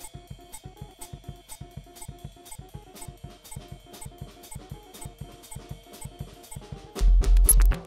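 A drum kit playing an accent-and-roll exercise: a quick, even stream of snare and hi-hat strokes over a backing track. About seven seconds in it turns much louder, with heavy bass-drum thumps and cymbal strikes.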